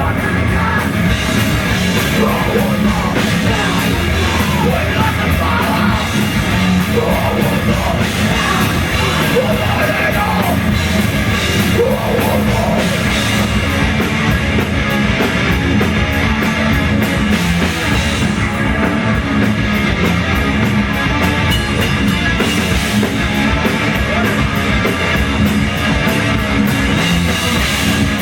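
Live rock band playing loud, hard-edged rock with a drum kit and electric guitars, and a singer's shouted vocals in the first half.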